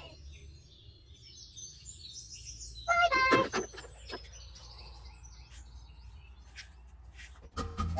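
Small birds chirping in short high notes, with one louder, short call about three seconds in.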